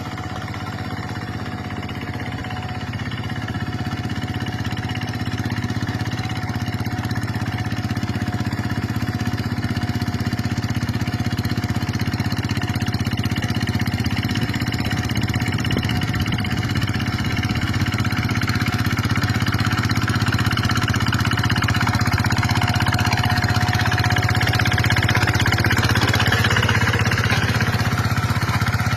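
Walk-behind paddy tractor's engine running steadily under load as it drags a harrow through a flooded rice field, slowly growing louder.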